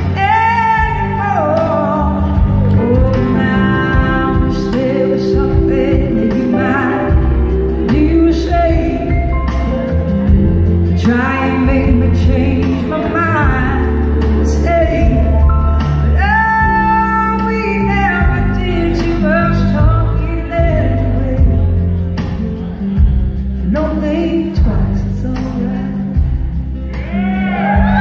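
Live blues-rock band playing: a woman's lead vocal over electric guitar, bass and drums, heard from the audience in a large hall.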